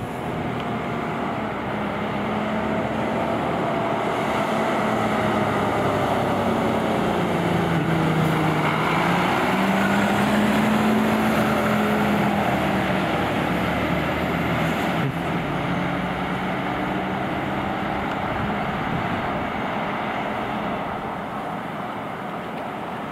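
A fire truck's heavy diesel engine driving past with no siren. It grows louder to a peak about halfway through and then fades, its engine pitch dipping and rising along the way.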